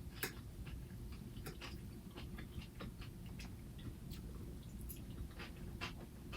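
Chewing a raw salad of leafy greens, croutons and raw vegetables, with irregular crisp crunches and small mouth clicks over a steady low hum.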